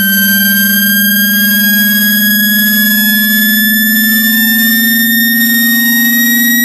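Synthetic speaker-cleaning test tone for water ejection: a loud, strong low tone together with several higher whistling tones, all slowly rising in pitch. It is meant to vibrate a phone speaker and push trapped water and dust out of its grille.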